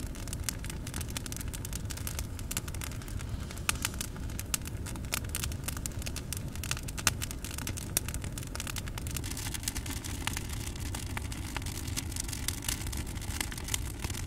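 Wood fire crackling, with irregular sharp pops over a low steady rumble.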